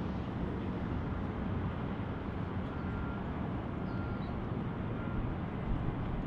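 Steady, low outdoor rumble: wind on the microphone mixed with distant city traffic noise.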